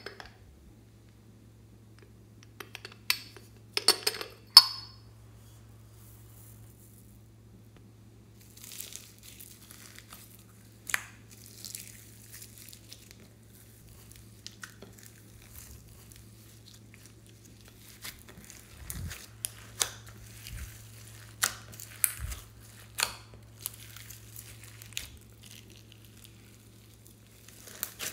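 Clear slime full of beads, glitter and sprinkles being kneaded and pressed by hand in a glass dish: scattered crackles and sharp clicks, loudest about four seconds in, with a low steady hum underneath.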